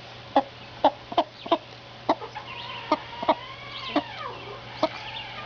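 Broody Partridge Cochin hen clucking in short, soft clucks, about two a second at an uneven pace, the steady clucking a mother hen keeps up to her brood. A longer, drawn-out call bends up and then down about the middle.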